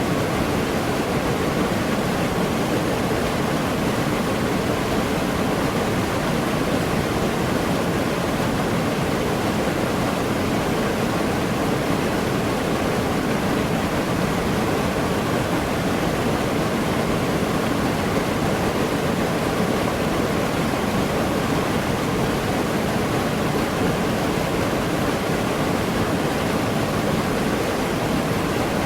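Forest waterfall, water falling and splashing in a steady, unbroken rush.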